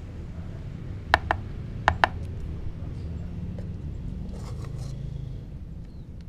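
Four sharp metallic clicks in two quick pairs, a little over half a second apart, as rice is served from a metal pot onto the board, over a steady low rumble.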